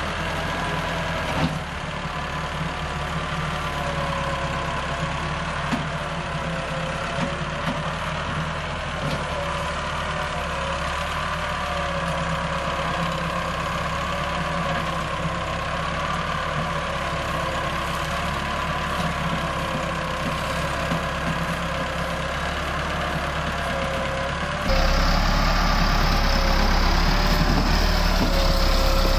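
Massey Ferguson 385 tractor's diesel engine running steadily under heavy load while hauling an overloaded sugarcane trolley, its pitch wavering slightly. Near the end it becomes abruptly louder and deeper, heard from close beside the tractor.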